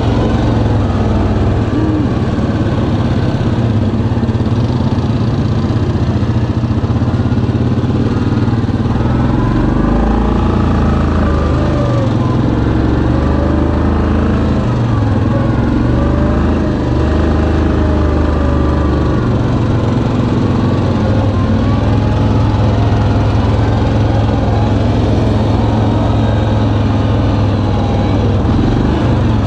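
Yamaha Kodiak 700 ATV's single-cylinder engine running under way on a dirt trail, its engine speed rising and falling as the rider eases on and off the throttle.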